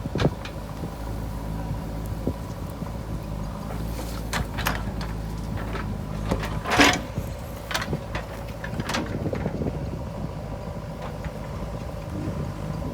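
JCB 3DX backhoe loader's diesel engine running steadily at work, with sharp metallic clanks and knocks now and then, the loudest about seven seconds in.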